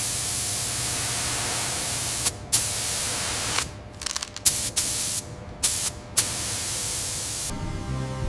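Hissing spray in on-off blasts: a long blast, a second one after a brief break, a run of short spurts, and a last blast that cuts off near the end.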